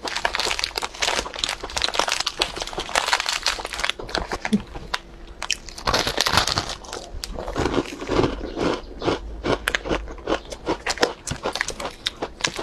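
Plastic wrapper of a crispy rolled egg wafer cookie crinkling as it is unwrapped, then a bite into the wafer about halfway through, followed by many short crisp crunches as it is chewed.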